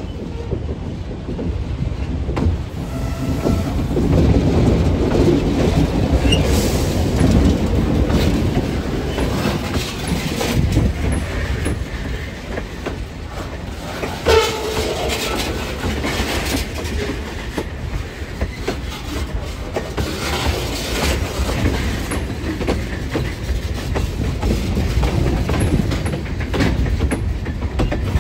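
Train rolling by, hauled by an Alco RS3M diesel locomotive: a steady low rumble with wheels clicking over rail joints, and a brief high squeal about halfway through.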